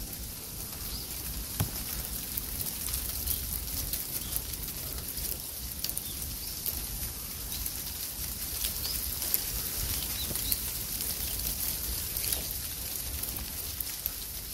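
Dry autumn leaves rustling and crackling: a steady, dense patter of small ticks and crackles, with a low rumble underneath.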